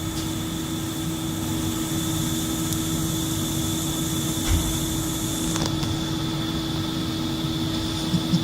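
Steady hum of workshop machinery with several constant tones, broken by a low thump about four and a half seconds in and a couple of light clicks near the end.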